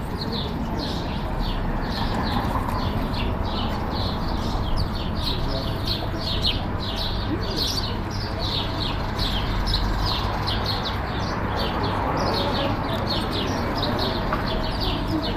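Sparrows chirping continuously, a busy chatter of short chirps several times a second, over a steady low background rumble.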